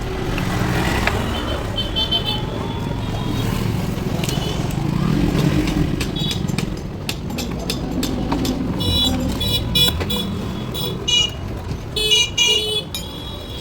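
Roadside traffic running steadily, with vehicle horns honking in short blasts several times and scattered sharp clicks and knocks.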